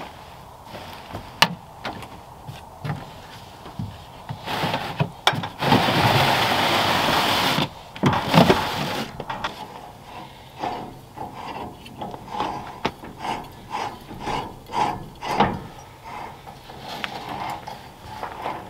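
Gear being handled on a truck bed with scattered knocks and clicks, and a rushing noise lasting about two seconds. In the second half, a propane cylinder is screwed onto a camp stove's hose fitting: a run of short rubbing, grating turns, about one to two a second.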